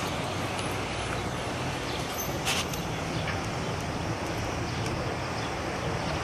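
Steady outdoor background noise, a low hum under a hiss, with one brief click about two and a half seconds in.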